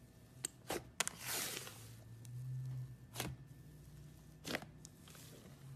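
Thick, porous slime squeezed and kneaded by hand, giving scattered sharp pops and clicks (about five) and a short crackling rush about a second in.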